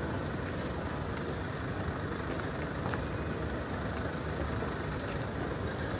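Steady rumble of city street traffic, with faint scattered clicks and ticks over it.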